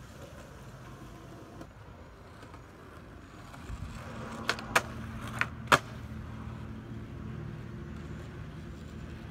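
Skateboard wheels rolling on a concrete street, with four sharp clacks of the board against the pavement about halfway through. A low steady rumble runs underneath.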